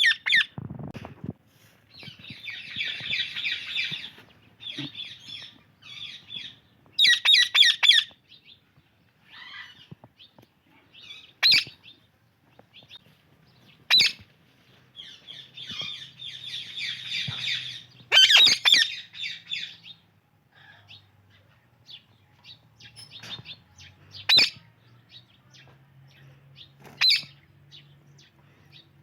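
Indian ringneck and alexandrine parakeets chirping and chattering in stretches of rapid calls, with short, sharp screeches every few seconds.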